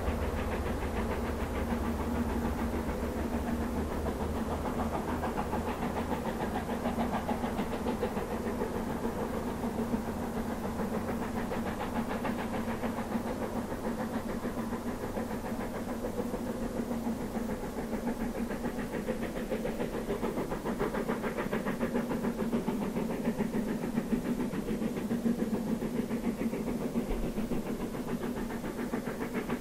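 Narrow-gauge steam locomotive chuffing in a fast, even rhythm of exhaust beats with steam hiss as it hauls a passenger train past. The deepest rumble fades in the second half as it moves away.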